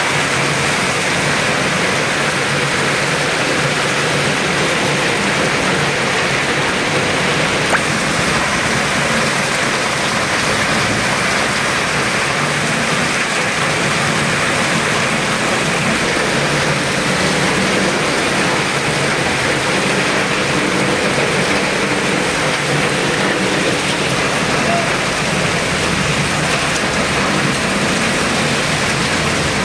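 Heavy rain pouring steadily onto a street and running water, an even, constant hiss. A single brief click about eight seconds in.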